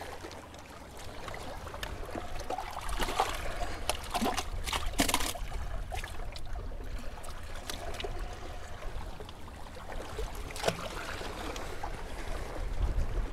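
Water lapping and trickling among the granite boulders of a rock jetty at the waterline, with wind rumbling on the microphone. A few short sharp sounds, about three to five seconds in and again near eleven, as a hand works in the water between the rocks.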